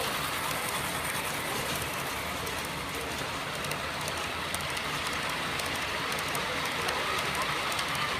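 Long model freight train rolling past on its track: a steady rattling rush of many small wheels, scattered with fine clicks.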